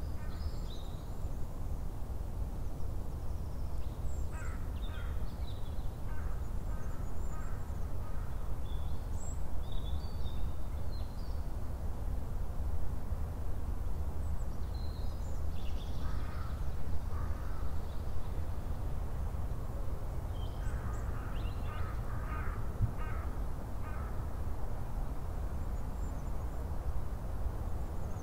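A crow cawing in short runs of several calls, three times across the stretch, with small birds chirping higher up, over a steady low rumble.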